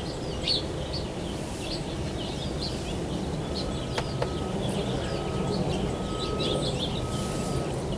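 Small birds chirping and twittering repeatedly, over steady outdoor background noise, with a single faint click about halfway through.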